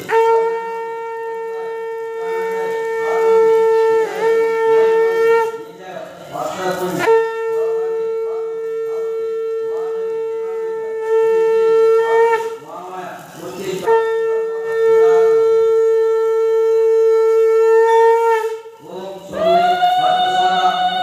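Conch shell (shankh) blown in long, steady blasts: three of about five seconds each, then a higher-pitched blast starting near the end.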